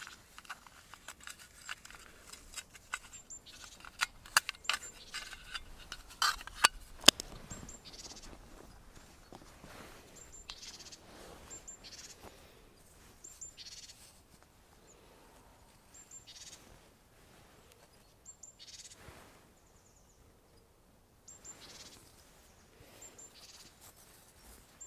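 Hand work with a small hatchet on bark and sticks: a cluster of sharp snaps and clicks in the first third, then short scraping strokes every second or two. A small bird repeats a short, high chirp throughout.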